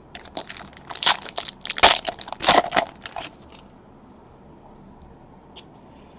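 Crinkling and crackling of a trading-card pack wrapper as it is torn open and crumpled, a dense run of crackles lasting about three seconds, then stopping.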